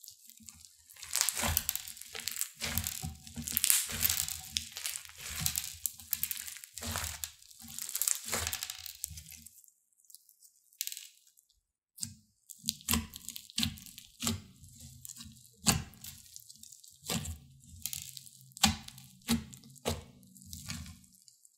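Crunchy slime packed with foam beads being stretched, squeezed and pressed by hand, giving dense runs of crackling pops and snaps with squishy thuds. The sound pauses about halfway through, then the crackling picks up again.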